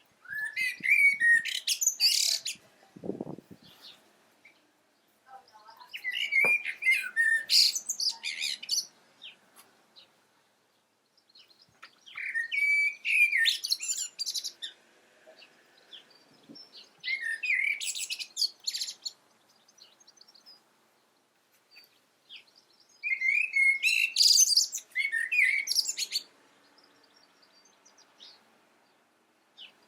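Blackbird singing five separate phrases, a few seconds apart. Each phrase is a lower warble that runs into a higher, squeaky twitter.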